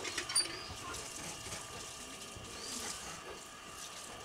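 Faint knocks of a steel tumbler pressed down through rolled dough onto a wooden board, cutting out fuchka circles, over a low steady hum.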